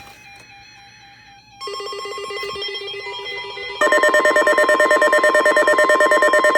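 NOAA Weather Radio alert tones for a tornado watch, sent late, after the watch had already been read: about one and a half seconds in a rapidly pulsing electronic alarm starts, and about four seconds in a much louder, steady alert tone comes in, its loudness pulsing several times a second.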